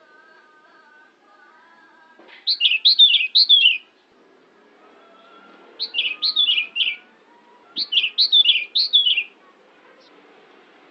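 Pied bushchat (decu) singing: three short phrases of quick, falling chirpy notes, a couple of seconds apart, with faint steady whistled tones underneath.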